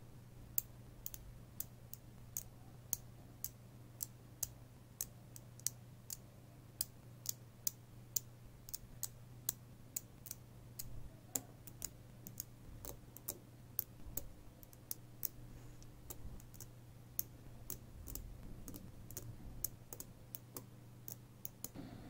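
Small neodymium magnet balls snapping together with sharp clicks, a few a second at an irregular pace, as they are fitted by hand onto a ring of balls. A steady low hum lies underneath.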